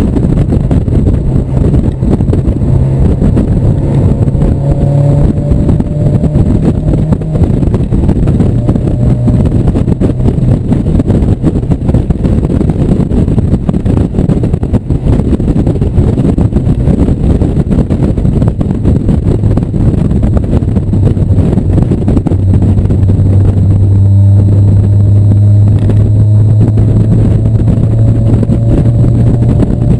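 1997 Mazda Miata's 1.8-litre four-cylinder engine running hard at track speed, heard from inside the open-top cockpit over a heavy rush of wind and road noise. The engine note shifts up and down with throttle and gears early on, then holds a loud, steady drone for the last third.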